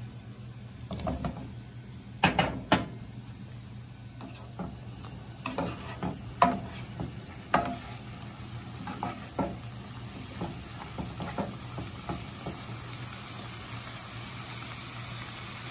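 Broccoli florets being put into a hot nonstick pan of carrots and asparagus and stirred: a dozen or so separate knocks and clatters against the pan over a faint sizzle.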